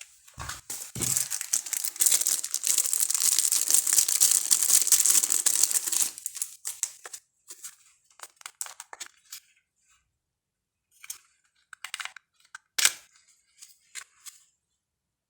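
Packaging being torn open and crinkled: about five seconds of steady tearing and crackling, then a run of short, scattered crinkles and clicks as the wrapping is handled.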